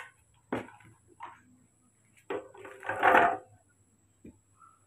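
Chopped carrot pieces going into a plastic blender jar, with knocks of the plastic lid and cup: a few separate clicks and clatters, then a longer rattle about three seconds in as the pieces are tipped in.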